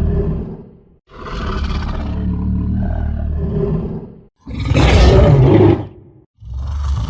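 Monster roar sound effect for an adult version of the giant ape Suko: a series of deep, growling roars. A long roar fades out about four seconds in. A louder, harsher roar follows, and another starts near the end.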